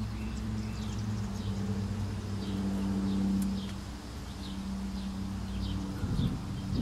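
A steady low mechanical hum of several held tones, with a small bird chirping repeatedly over it, short falling high notes about twice a second. A brief low rumble near the end.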